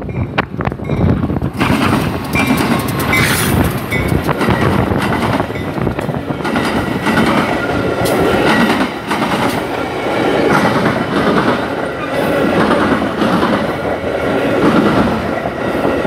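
Metra commuter train passing close: the diesel locomotive, then a string of stainless-steel bilevel passenger cars, with wheels clacking over the rail joints. The sound eases slightly near the end as the train draws away.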